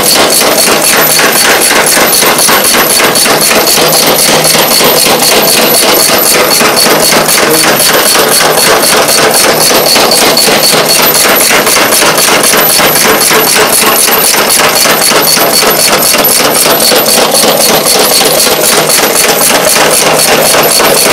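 Belt-driven herb cutting machine running, its blade chopping green catalpa seed pods into pieces about 1 cm long. Rapid, steady chopping strokes over the hum of the motor.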